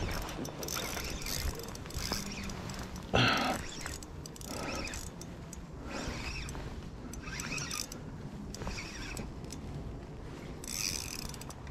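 Fishing reel being wound, its gears and ratchet giving short bursts of mechanical noise about once a second, with one louder burst about three seconds in.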